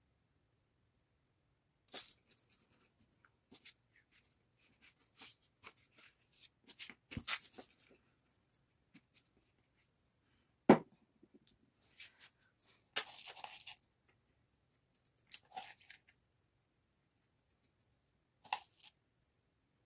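Scattered food-handling sounds: hands patting and pressing dough on a plastic cutting board, with soft rustles and light taps. There is a sharp knock about halfway, and later a short rattling rustle and taps as a spoon scoops rice onto the dough.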